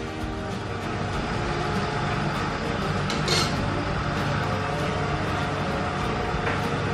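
Steady hum of a kitchen fan motor with an even hiss over it, and a single light clink about three seconds in.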